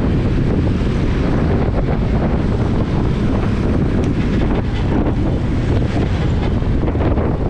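Heavy wind buffeting a GoPro Hero 8's microphone on the move: a loud, steady low rumble with no break.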